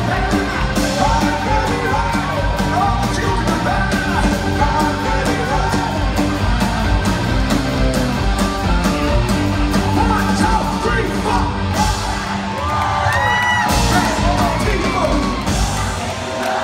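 Live rock band playing loud in a large hall: electric guitars, bass and drums under a singer who sings and yells.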